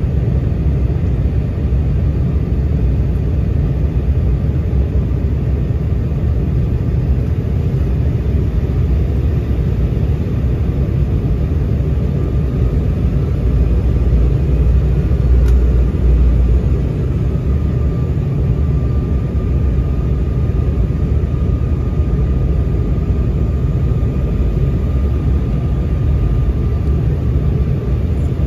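Cabin noise inside an Embraer 195 on approach: a steady low rumble of its turbofan engines and the rushing air, with a faint steady whine coming in about twelve seconds in.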